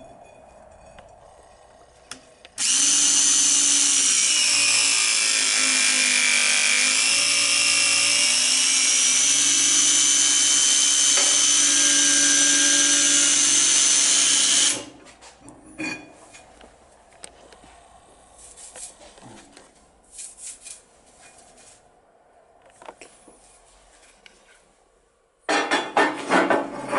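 Ogura HPC-N208WDF cordless hydraulic hole punch running its motor and pump for about twelve seconds as it punches a steel flat bar, a steady whine whose pitch dips for a few seconds partway through. Light clicks and knocks follow, then a loud burst of clatter near the end.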